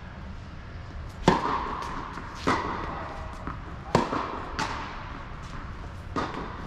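A tennis serve and rally on an indoor court: the serve is struck about a second in and is the loudest hit, followed by four more sharp pops of ball on racket strings and court, each with an echoing ring from the hall.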